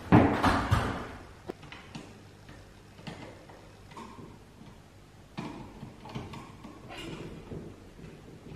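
Hand work on a recessed LED light's small metal junction box: a louder knock and rustle in the first second, then scattered light clicks and taps as a screwdriver and wires are worked at the box.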